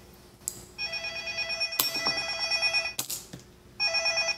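Telephone ringing with a warbling ring: one long ring of about two seconds, then another starting near the end, with a few sharp clicks in between.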